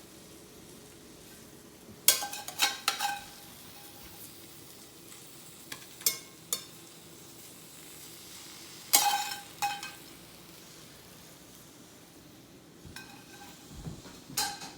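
Oysters sizzling on a grill with a steady low hiss, broken by several short bursts of hard clinking clatter: about two seconds in, around six seconds, around nine seconds and near the end.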